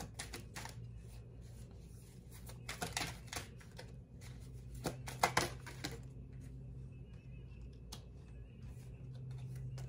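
Tarot cards being handled on a tabletop: a few short papery slaps and rustles as cards are picked up and laid down, the loudest in clusters about three and five seconds in, over a low steady hum.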